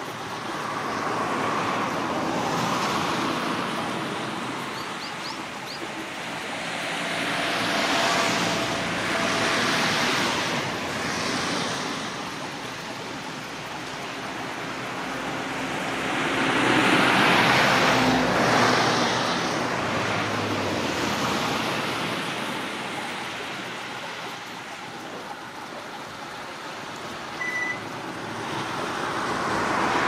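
Road traffic passing nearby: a hiss of vehicle noise swells and fades several times, loudest about seventeen seconds in, when a low engine sound comes through with it.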